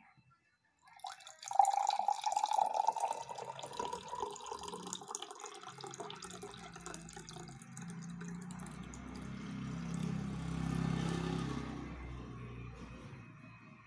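Water poured in a thin stream into a tall glass tumbler, starting about a second in with a loud splashing on the empty glass bottom, then a lower bubbling churn as the glass fills; the pour tapers off and stops near the end.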